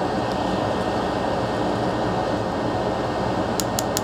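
Steady fan-like hum; then, from about three and a half seconds in, a quick run of sharp clicks, about six a second, as a pointed pick rakes across the freshly soldered pins of a surface-mount chip to test the joints.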